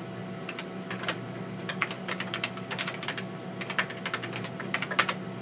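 Typing on the TRS-80 Model 16B's keyboard: a quick, irregular run of key clicks as a command is entered, over a steady low hum.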